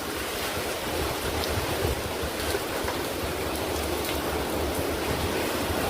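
Hurricane wind and heavy rain making a steady rushing noise, with wind buffeting the microphone in a low, uneven rumble.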